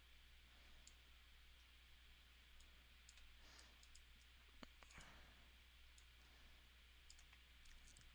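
Near silence with faint, scattered computer mouse clicks as line points are placed one after another, two slightly louder clicks about halfway through, over a faint low hum.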